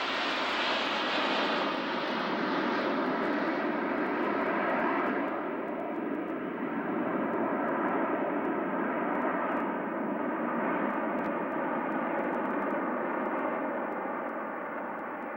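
A formation of Snowbirds CT-114 Tutor jet trainers flying over, their turbojets making a steady rushing jet roar. The high-pitched part of the sound falls away about five seconds in as the formation moves off, leaving a duller, steady rumble.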